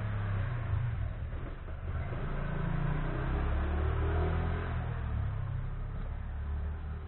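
A car engine running, its pitch rising and falling a little.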